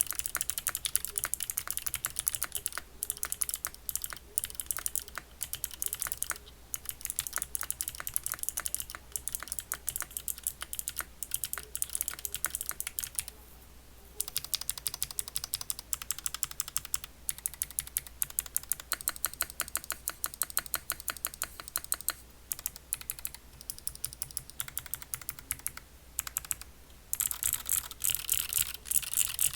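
Typing on a freshly built QK60 60% mechanical keyboard with Foundation keycaps: a fast, steady run of key clacks with a few short pauses, growing louder and faster near the end.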